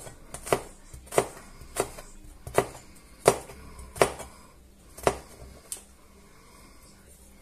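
Chef's knife mincing garlic on a plastic cutting board: about nine sharp knocks of the blade on the board at an uneven pace, stopping a little over a second before the end.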